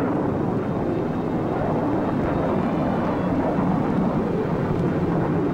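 Steady roar of a B-52 bomber's jet engines in flight, even and unbroken.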